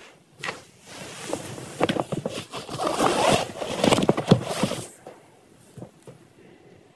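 Rustling, scraping and clicking as items are handled and rummaged through in a handbag: a quick, busy run of sounds, loudest in the middle seconds, fading out about five seconds in.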